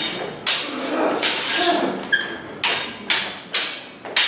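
Stage-combat swords clashing in a rapid exchange: about eight sharp clacks, roughly two a second, one of them ringing briefly.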